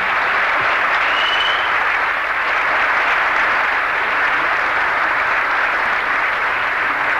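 Audience in a hall applauding steadily, with a brief high whistle about a second in.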